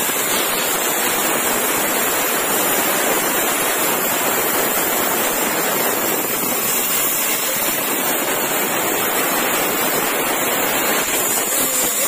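Table band sawmill ripping a long, old weathered wooden beam lengthwise: a steady, noisy rasp of the blade cutting through the wood, easing slightly near the end as the cut runs out.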